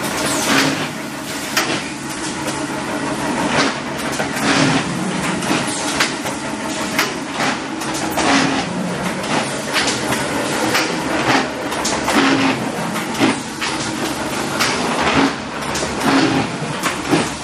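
Magellan boxmaker running, feeding corrugated board blanks: a steady mechanical clatter with sharp clacks about once a second and a short low hum every couple of seconds.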